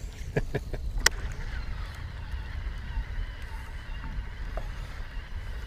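Wind rumbling on the microphone over open water, with a few sharp clicks in the first second as a baitcasting rod is swung through a cast.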